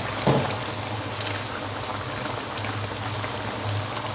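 Taro pieces simmering in a thin broth in a metal wok, bubbling and crackling steadily, with a metal spatula scraping the wok briefly near the start. A steady low hum runs underneath.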